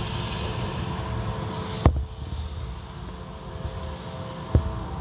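Tunnel car wash heard from inside the car's cabin: a steady rush of spraying water and machine hum as soapy cloth wash strips sweep over the windshield. Two sharp slaps of the strips against the glass, one about two seconds in and one near the end.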